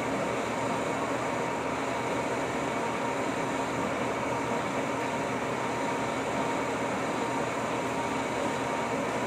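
Lucas model 41 horizontal boring mill running steadily: an even mechanical hum with a few constant high tones.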